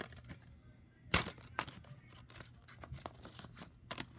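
Plastic DVD case handled and opened: a sharp snap about a second in, followed by scattered light clicks and rustling of plastic and paper.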